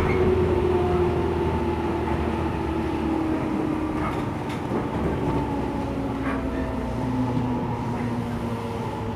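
JR 415 series electric train's MT54 traction motors whining under the running noise of the car, the tone slowly falling in pitch as the train slows toward a station stop. Steady rumble of wheels on rail with a few light clicks.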